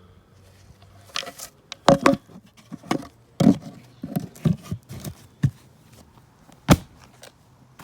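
A string of irregular clicks and knocks, the loudest about two seconds in and near the end: metal tools and fittings being handled during work on a hot water system's pressure relief valve and pipework.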